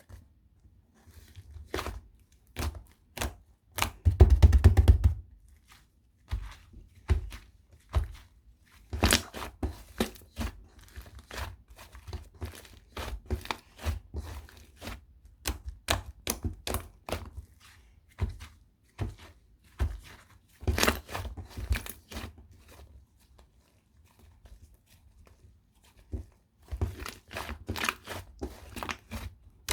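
Hands squishing, poking and stretching a soft, smooth slime, giving irregular sticky pops and crackles, with a dense run of rapid crackling about four seconds in.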